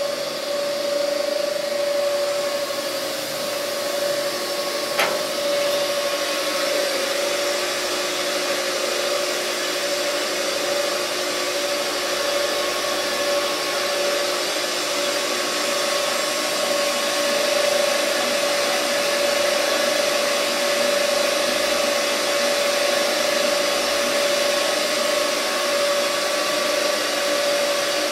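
Paul O. Abbe ribbon blender running empty, its drive giving a steady whir with one constant whine. A single click about five seconds in.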